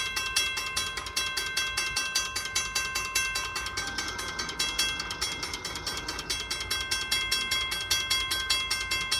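Railroad grade-crossing bell ringing with rapid, even strikes. The crossing has been activated and its gates are coming down, a warning that a train is approaching.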